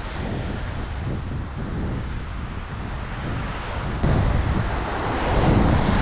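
Wind buffeting the microphone over small waves breaking and washing on a sandy shore, a steady rushing rumble that grows louder from about four seconds in.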